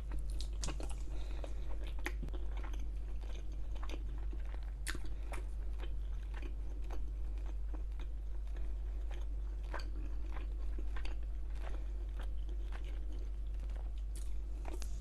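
Close-miked chewing and biting of food, with many small mouth clicks and crunches throughout.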